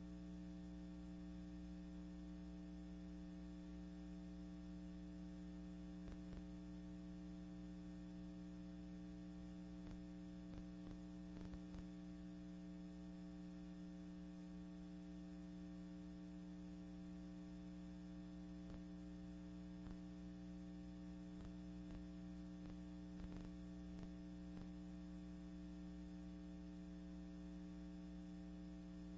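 Steady low electrical hum with a few faint clicks, and no other sound: the bare soundtrack of silent archival film.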